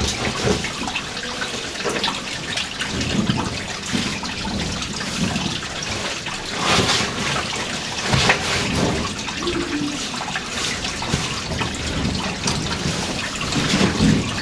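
A caver squeezing through a narrow rock passage: caving suit and gear scraping and rustling against the rock in irregular bursts, over a steady trickling hiss.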